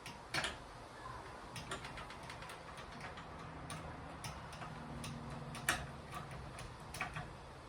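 Irregular small clicks and taps of hardware and tools handled while ceiling fan blades are being fitted, with the loudest click about six seconds in.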